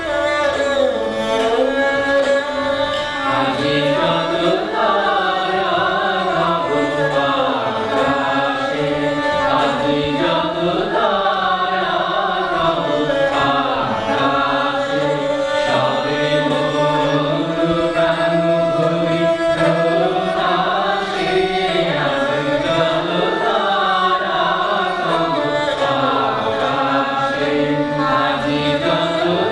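A small group of voices singing a slow Bengali song together, accompanied by a bowed esraj.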